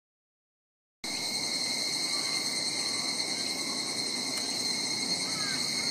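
Silence for about the first second, then a steady chorus of insects sets in, made up of high, continuous shrill trilling at several pitches. A few faint short chirps come near the end.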